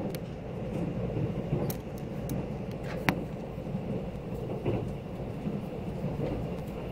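KTX train running at speed, heard inside the passenger car: a steady low rumble of wheels and track, with a few short sharp clicks, the loudest about three seconds in.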